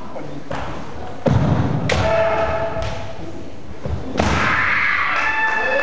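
Kendo bout: bare feet stamping on a wooden floor in two heavy thuds, bamboo shinai clacking in sharp knocks, and two long drawn-out kiai shouts from the fighters as they strike.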